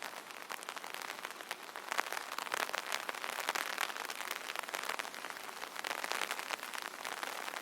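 Rain pattering steadily on an umbrella canopy: a dense, even spatter of many small drop ticks.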